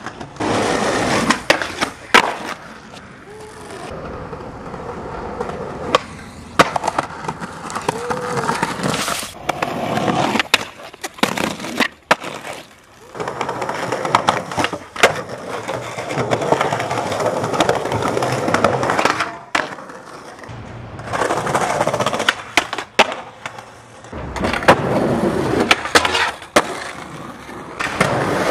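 Skateboard wheels rolling on concrete, with repeated sharp snaps and claps as the tail is popped and the board lands, across several short clips.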